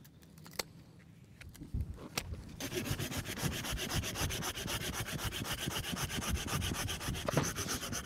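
Hand pruning saw cutting through the trunk of a young wild cherry rootstock, in fast, even rasping strokes that start about two and a half seconds in.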